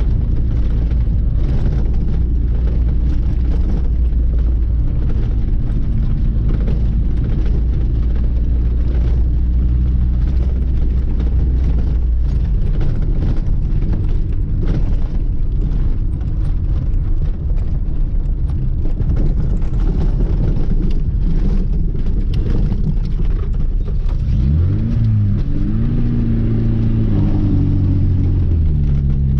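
Lada 2106's four-cylinder engine running while the car is driven, a steady drone. About halfway through the engine note drops lower. In the last few seconds the revs climb, dip and climb again, as in accelerating through a gear change.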